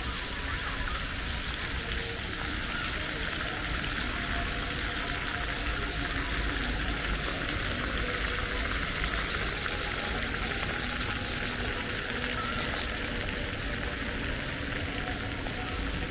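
Steady splashing hiss of fountain jets in a paved square, with a low rumble underneath and faint voices of passers-by.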